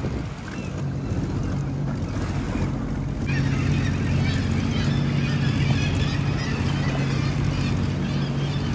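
Sea-Doo Fish Pro jet ski engine running steadily at low speed, a constant low hum. From about three seconds in, water splashing and lapping joins it.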